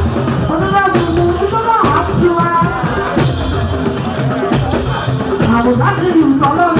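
Live fuji band music: a lead singer praise-singing over drums and percussion.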